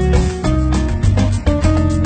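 Background music: a bright instrumental track with held notes over a steady, rhythmic bass line.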